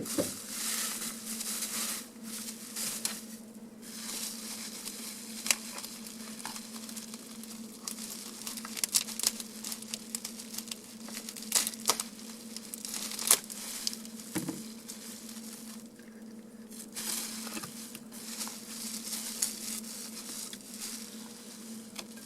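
Packing wrap crinkling and rustling as small model locomotives are unwrapped and handled, with scattered light clicks and taps.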